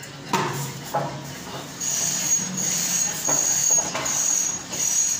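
Plasterer's long straightedge scraping across fresh plaster on a wall: about five even, hissing rasps, one every 0.7 s or so, after two short knocks in the first second.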